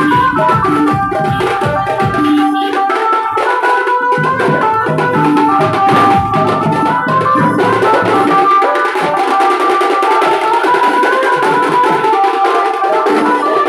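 Band-party music: dhol drums beaten with sticks in a fast, dense rhythm under a held, electronic-keyboard-style melody. About eight seconds in, the heavy drumming drops away and the melody carries on over lighter beats.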